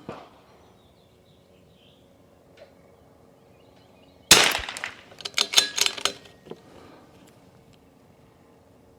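A single shot from a Desert Precision Gunworks Rim-X .22 LR bolt-action target rifle firing Lapua Master L match ammunition: a short sharp crack a little over four seconds in. About a second later comes a quick run of sharp metallic clicks, likely the bolt being worked to extract the case and chamber the next round.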